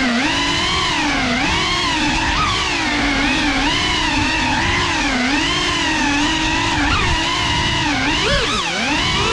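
Geprc FPV quadcopter's motors and propellers whining. The pitch keeps rising and falling as the throttle changes while it manoeuvres.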